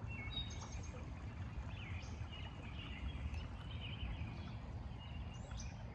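Small birds chirping and calling, many short chirps and brief trills scattered throughout, over a steady low rumble of outdoor background noise.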